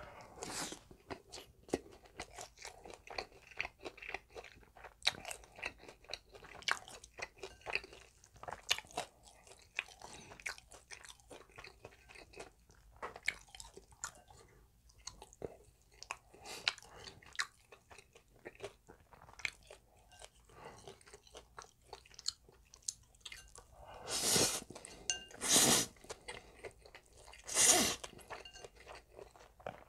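Close-miked chewing of crispy fried pork cutlet, a dense run of small crunches. Near the end come three loud slurps of spicy noodles.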